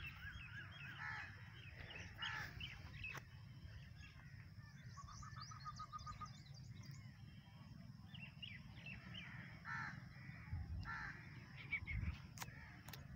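Faint bird calls: a string of short repeated calls and higher chirps, over a low steady rumble. A couple of sharp clicks come near the end.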